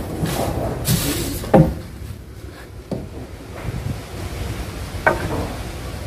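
Heavy timber logs knocking and scraping against each other and a wooden pole as they are shifted and stacked by hand: a series of sharp wooden knocks, the loudest about a second and a half in and another about five seconds in.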